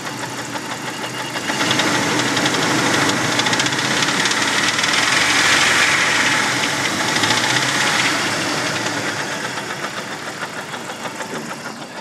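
1998 Jeep Wrangler TJ's 2.5-litre four-cylinder engine revved by hand at the throttle. It rises from idle about a second and a half in, holds for several seconds and eases back down, with a knocking running through it. The owner can't place the knock: lifter noise, piston skirt slap or engine knock, perhaps even the transmission.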